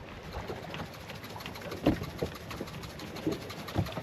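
Seasoning containers handled over a fish fillet: scattered light taps and clicks, with a louder knock about two seconds in and another near the end, over a steady outdoor hiss.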